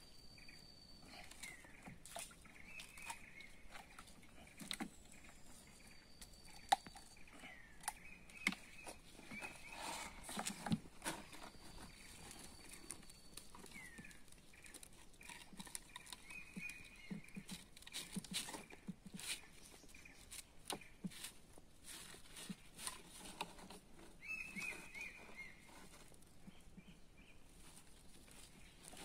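Scattered knocks and rustles of a caught toman (giant snakehead) and a mesh keep net being handled against a wooden boat. Behind them, repeated short bird calls falling in pitch, and now and then a high, steady whistle.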